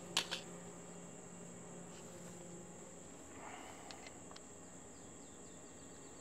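Faint, steady high-pitched insect chirring, with two sharp clicks near the start and a few faint ticks later.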